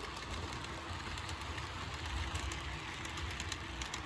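HO-scale model train running on the layout track: a steady low rumble with light, scattered clicks from the wheels on the rails.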